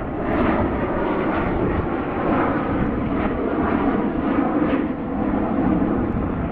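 Loud, steady jet engine noise with some crackle from a McDonnell Douglas MD-80-series ("Mad Dog") airliner's two tail-mounted jet engines going by, harsh enough to sound like a fighter jet.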